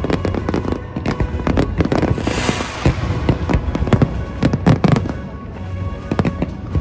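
Aerial fireworks going off in quick succession: many sharp bangs and crackles, with a rush of hissing crackle about two seconds in and the heaviest bangs near five seconds in.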